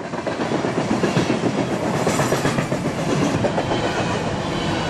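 Freight train of tank cars rolling past: steel wheels on the rails make a steady rumble shot through with a rapid run of clacks.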